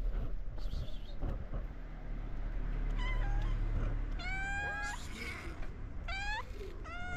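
Hungry stray cats meowing for food. Three or four meows come in turn from about three seconds in, each rising and then falling in pitch, over a low steady rumble.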